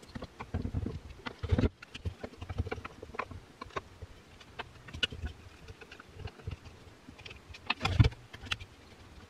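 Small Torx screws being backed out of a DeWALT 20V reciprocating saw's housing, with parts being handled on a workbench. There are scattered light clicks and taps, and two louder knocks, about one and a half seconds in and near the end.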